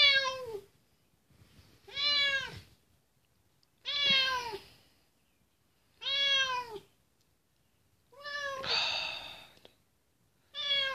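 A domestic cat meowing over and over: six long, drawn-out meows about two seconds apart, each dropping in pitch at its end, one of them trailing off in a breathy hiss.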